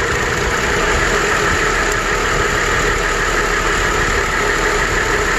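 4.2-litre inline-six engine of a 2005 GMC Envoy idling steadily with the hood open, running with cylinder number 3 misfiring.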